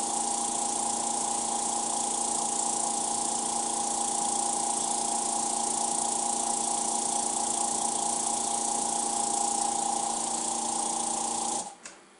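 A small electric pump running with a steady hum and hiss, switched off suddenly near the end.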